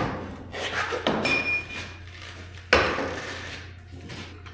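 Knocks and clanks of metal parts and tools being handled during a repair, the loudest a sharp hit a little under three seconds in, with a brief squeak about a second and a half in.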